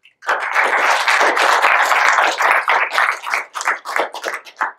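Audience applauding: dense clapping that thins to scattered separate claps near the end, then stops.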